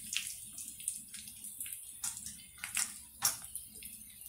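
A tempering of mustard seeds, cumin, pepper and dried red chillies sizzling in hot oil in a kadai: a steady sizzle with irregular sharp pops and crackles, a few louder pops in the second half.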